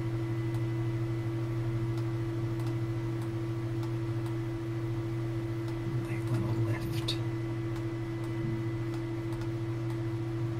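Steady low electrical hum with a faint scattered ticking of computer mouse or keyboard clicks.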